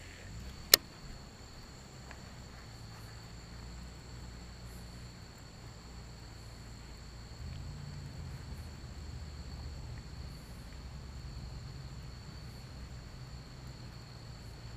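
Insects trilling in a steady, unbroken high drone, with a low rumble underneath. A single sharp click comes about a second in.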